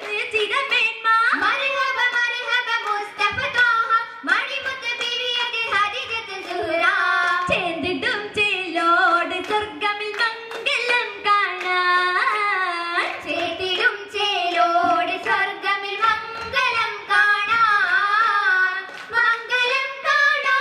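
Girls' voices singing an Oppana song (Mappila folk song) through the stage microphones, with the dancers' sharp hand claps keeping the rhythm.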